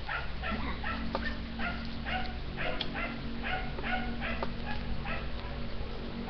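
A dog yipping over and over, short high yips two or three a second, over a steady low hum.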